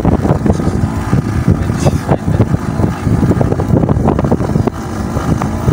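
Fishing boat's engine running in a steady low rumble, with wind buffeting the microphone.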